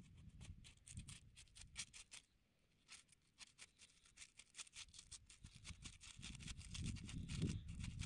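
Knife point slitting open an aluminium foil parcel, the foil crackling and tearing in a quick, irregular run of small ticks.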